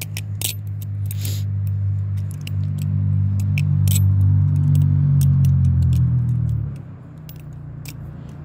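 Butterfly knife (balisong) clicking and clattering as it is flipped through rollovers, many light clicks in quick succession. Under it, a low engine drone from a motor vehicle, growing louder and then dropping off abruptly about seven seconds in; the drone is the loudest sound.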